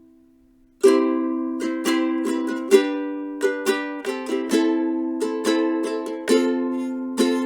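Camwood ukulele played: after a short pause while a chord fades out, chords are strummed in an irregular rhythm starting about a second in, each strike ringing and decaying.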